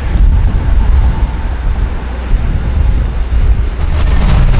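Semi-truck diesel engines running as heavy-haul rigs with oversize loads roll slowly past, a steady low rumble that grows a little louder near the end.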